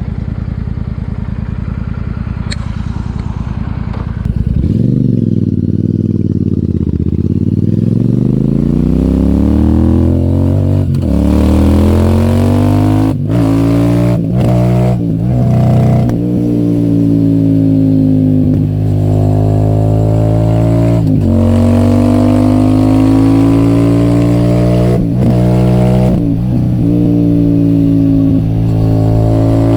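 Royal Enfield Super Meteor 650's parallel-twin engine through an AEW TE 202 aftermarket exhaust, being ridden. It runs low and even at first, then pulls away about four seconds in, rising in pitch. It drops back briefly several times at gear changes and keeps climbing to a steady cruise.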